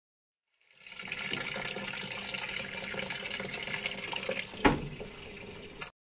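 Water running steadily into a top-load washing machine's tub as it fills. A thump about four and a half seconds in, after which the running goes on quieter and cuts off suddenly near the end.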